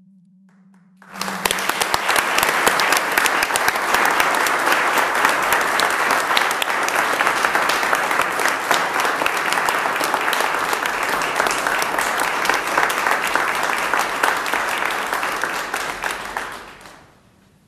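Applause from the people in a meeting room: many hands clapping. It starts suddenly about a second in, holds steady, and dies away near the end.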